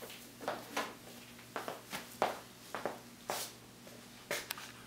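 A person getting up from a seat and walking away: a series of short, irregular rustles and soft steps, the loudest a little past two seconds in.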